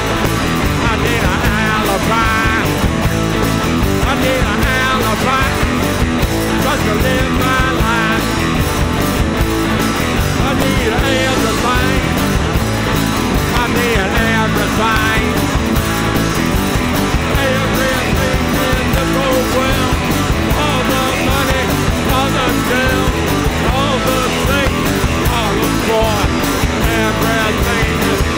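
Live rock band playing loud: electric guitars, bass and drums, with a singer's voice over them.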